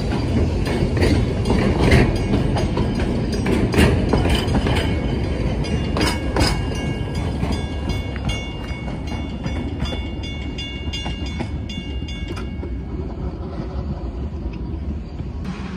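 Narrow-gauge wooden passenger carriages rolling past over a level crossing, wheels clicking and clacking over the rail joints, fading as the last carriage goes by. A level-crossing bell rings in the second half and stops about twelve and a half seconds in.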